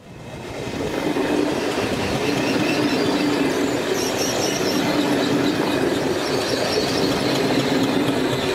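A train running along the rails, a steady rumbling noise with faint steady tones above it, fading in over the first second.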